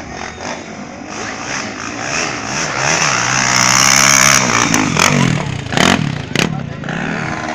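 Trail motorcycle engine revving, its pitch rising and falling as the throttle opens and closes, loudest about halfway through. Two brief knocks come about six seconds in.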